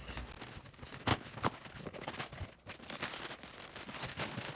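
Packaging being handled and opened: irregular crinkles, rustles and clicks, with a couple of sharper knocks about a second in.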